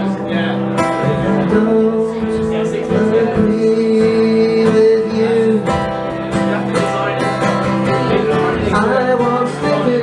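Acoustic guitar strummed in a live song performance, recorded from within the audience, with a long held chord through the middle.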